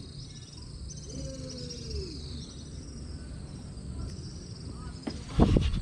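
Insects chirring in a high, repeating trill that steps down in pitch, over a low background rumble. A brief loud thump near the end.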